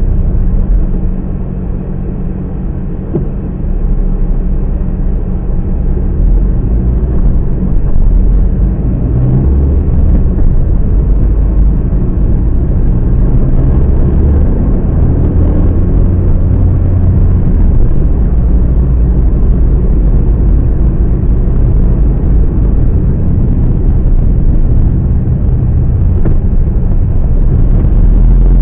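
Car driving in town heard from inside the cabin: a steady low rumble of engine and road noise, dipping briefly about a second in, then rising and holding steady.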